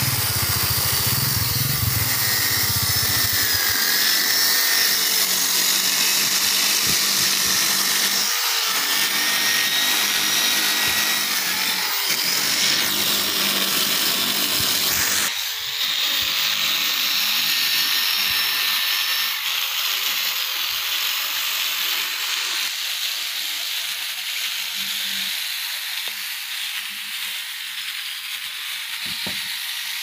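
Electric power tool running continuously: a high, wavering motor whine over a rasping hiss. It breaks off briefly about halfway through, then runs on a little quieter towards the end.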